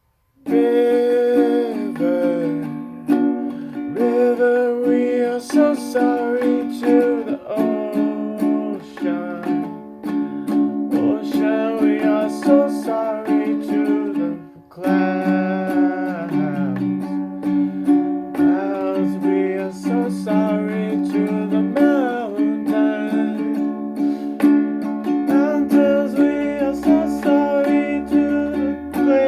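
A song played on a plucked string instrument, starting about half a second in, with a brief break near the middle and low bass notes joining near the end.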